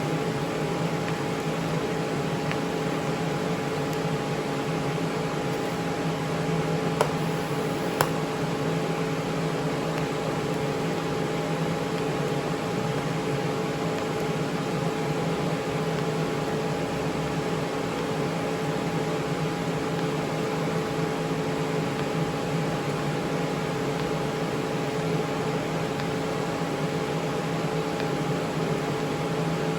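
TIG welding machine running: a steady electrical hum with a fan-like hiss and a few constant tones, unbroken throughout, with two sharp clicks about seven and eight seconds in.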